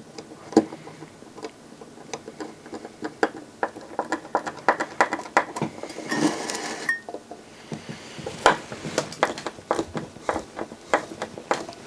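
Screwdriver driving a screw to fasten an amplifier module onto its heatsink: a run of small, irregular clicks with a short scrape and squeak about six seconds in.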